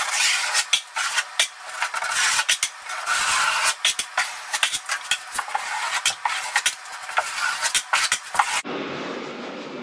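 Flat steel trowel scraping repeatedly over Kerdi-Band and wet thin-set mortar on a shower wall, pressing the band in, with many quick scrapes and sharp clicks of the blade. The sound cuts off abruptly near the end.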